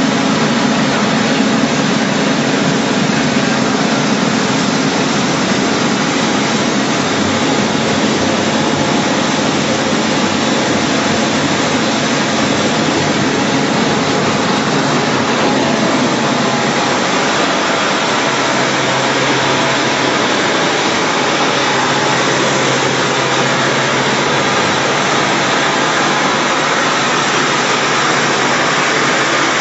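A plastic film washing line running: the paddle rollers of a floating washing tank churning water and plastic flakes, with the plant's motors giving a steady, loud machinery din. Under it is a low hum that shifts lower about halfway through.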